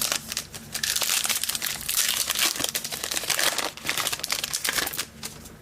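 Foil trading card pack wrapper crinkling and tearing as it is opened by hand, a dense crackle that stops near the end.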